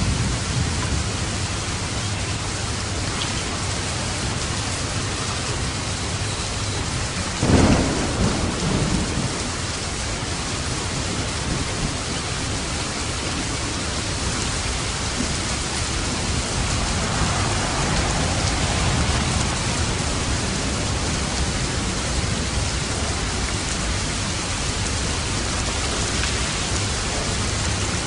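Steady heavy rain with thunder: a sharp thunderclap about seven and a half seconds in, rumbling on briefly, and a softer roll of thunder later.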